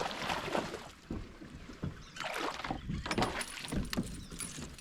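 Water splashing and scattered knocks on a fishing kayak as a smallmouth bass is landed and handled, the fish flapping in and out of the water.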